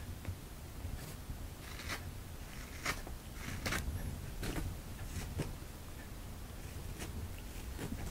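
Fabric cat tunnel rustling as a cat inside claws and paws at its wall, in short scrapes about a second apart.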